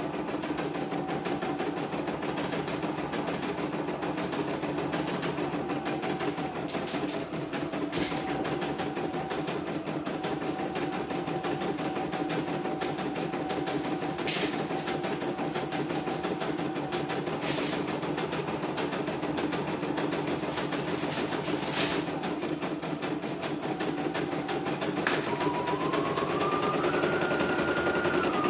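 A CNY computerized embroidery machine stitching a test design at a steady, rapid pace. A few sharp clicks are heard along the way, and near the end a whine joins in and rises in steps.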